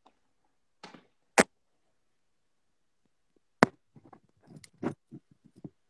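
Two loud sharp clicks about two seconds apart, then a run of small knocks and taps, with silence between: handling noise from the smartphone streaming the call.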